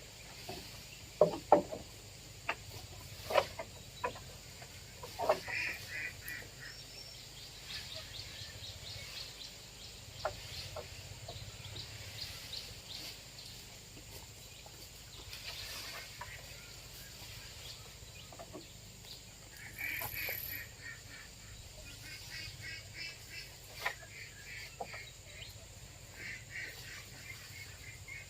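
Domestic poultry calling in quick pulsed runs, with a few sharp knocks in the first five seconds.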